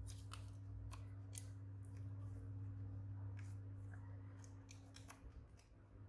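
Faint, irregular sharp clicks and snips of small hand tools and plastic parts being handled, over a steady low electrical hum.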